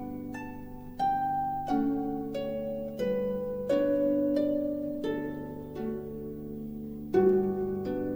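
Background music: a slow melody of plucked, harp-like notes, each starting sharply and ringing on as it fades.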